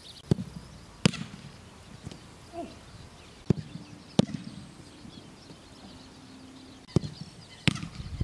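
About seven sharp thuds of a football being kicked, some coming in pairs less than a second apart.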